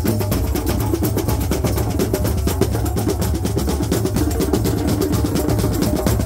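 Drum circle: many hand drums and drums struck with sticks playing together in a fast, dense rhythm.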